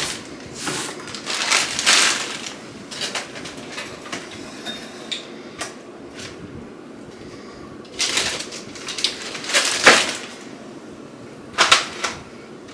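Packaging being handled and opened: irregular rustling and crinkling in short bursts, with a quieter stretch in the middle.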